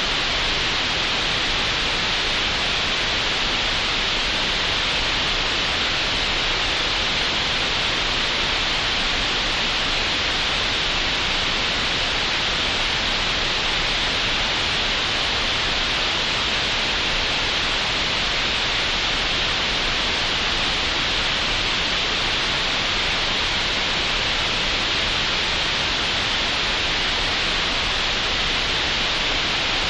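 Steady synthetic green noise generated in Audacity: an even, unbroken hiss, brightest in the upper middle, with no changes or events.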